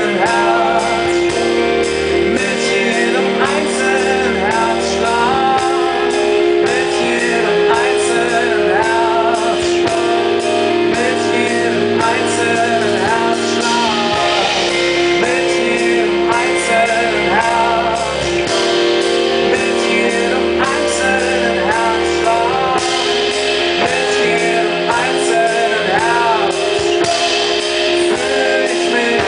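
Live band playing: held keyboard chords and a low bass line under a melody that bends and wavers in pitch, with electric guitar.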